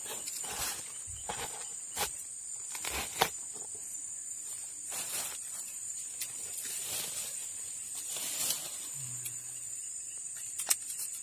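Steady high chirring of insects from the swamp vegetation, with scattered rustles of leaves and footsteps in the first half and a sharp tick near the end.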